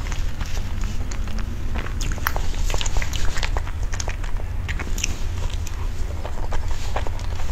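A soft cream-filled purple pancake lifted out of a thin black plastic tray, making scattered light crackles and clicks, then bitten into near the end with soft, wet eating sounds. A steady low hum runs underneath.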